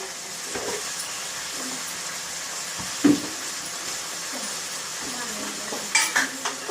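Broad bean pods and potatoes sizzling steadily in hot oil in a pan, with a spoon knocking against the pan once about three seconds in and twice near the end while the vegetables are stirred.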